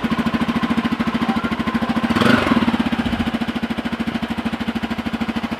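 Bajaj Pulsar N250's single-cylinder engine idling through its twin-outlet muffler, with an even, steady beat, briefly louder about two seconds in.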